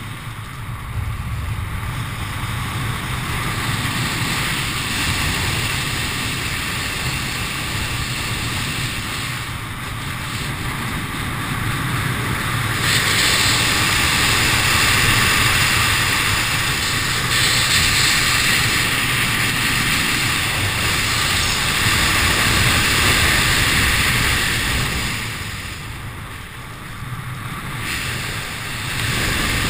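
Wind rushing over the microphone of a camera flying under an open parachute canopy, a steady rumbling hiss that swells louder for a stretch in the middle and eases briefly near the end.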